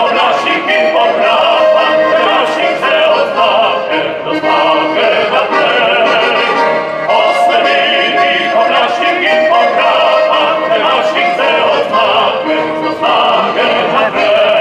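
Male vocal group singing a Slovene partisan song in full, operatic-sounding voices, with accordion accompaniment; the voices hold long notes with vibrato, phrase after phrase.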